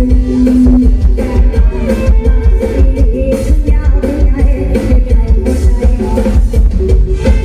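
Loud band music with a singer over heavy bass and a steady drum beat.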